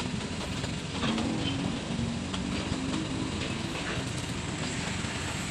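Vehicle engine idling steadily, a low rumble with no sharp events.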